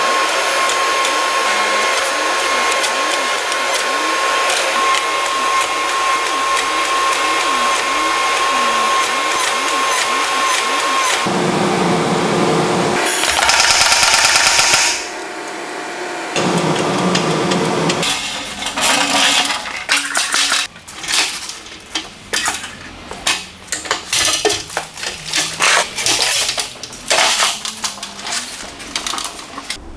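Hydraulic forging press running with a steady whine while it squeezes a red-hot steel bar. Then a pneumatic power hammer runs in a few short, louder bursts with hissing air. It breaks down, and in the last part come irregular metal clanks and rattles as it is wheeled off on a lift cart.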